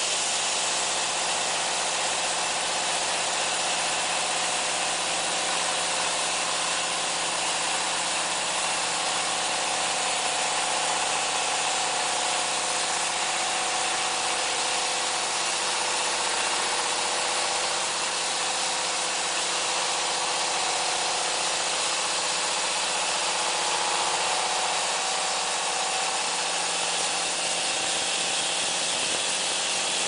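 Diesel engine of an MJ700D portable horizontal band sawmill running steadily and driving the band saw blade, with a steady high hiss over the engine note.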